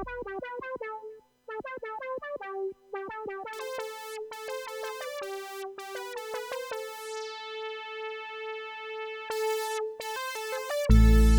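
Analogue polysynth, a clone of the Roland Jupiter-8, playing a pattern of short plucked notes with a light delay, then brighter sustained notes whose overtones sweep downward about seven seconds in. A loud deep bass line comes in just before the end.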